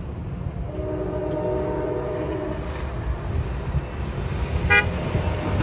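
A distant train horn sounds one long blast, starting about a second in, over the low rumble of the passing train and wind. There is a single brief ding near the end.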